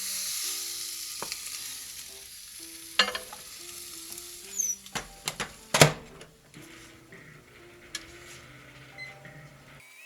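Miso-marinated redfish sizzling on a microwave browning dish heated in the microwave, the sizzle starting suddenly and slowly fading. Several sharp clacks and knocks of the dish or its lid being handled come in the middle, the loudest about six seconds in, over faint background music.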